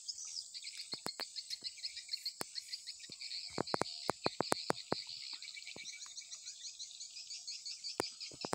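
Dense chorus of insects chirring in fast, high-pitched pulses in tropical plantation undergrowth. A run of sharp clicks and snaps cuts across it, thickest about four seconds in and once more near the end.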